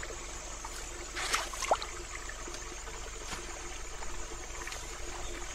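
Quiet outdoor ambience by a pond: a steady low hiss with a faint hum, a short swish about a second in, a brief thin chirp right after, and a few faint ticks.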